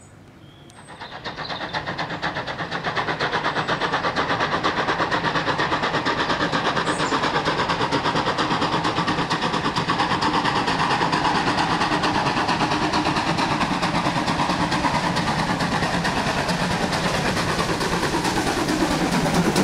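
Steam locomotive hauling a train of hopper wagons as it approaches, its exhaust beating in a fast, even rhythm; the sound comes in suddenly about a second in and stays loud.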